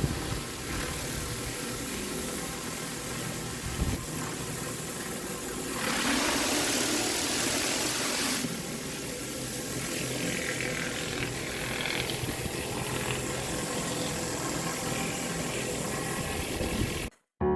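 Pressure washer running steadily with its high-pressure water spray hissing on concrete, the spray hiss louder for a couple of seconds in the middle. It cuts off abruptly near the end.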